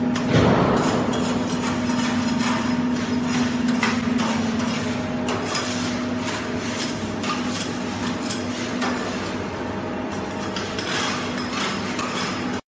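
Food-processing machinery running with a steady low hum, over dense clattering and clinking.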